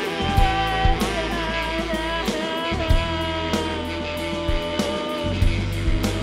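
Live rock band playing: drum hits over a steady bass line, with electric guitar and a long held lead note that slides slowly in pitch.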